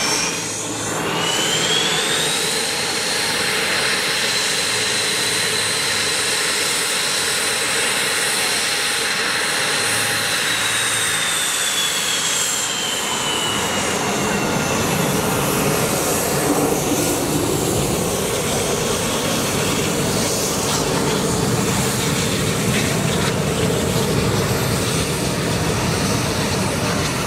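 Jet engine of a KAI T-50B trainer taxiing, its single turbofan giving a steady rushing roar with a high whine on top. The whine climbs in pitch over the first couple of seconds, holds, then slides down and fades from about ten seconds in, leaving the roar.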